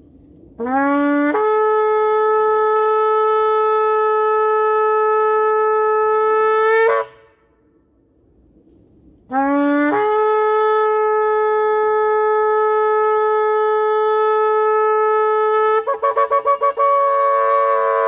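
Shofar blown in two long blasts. Each starts on a low note, jumps up to a steady held tone for about six seconds, and ends with a brief upward flick. The second blast breaks near the end into a rapid stutter of short pulses, about four a second.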